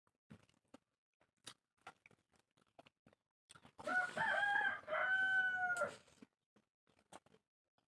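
A rooster crowing once, a cock-a-doodle-doo of about two seconds starting around the middle, among faint scattered clicks.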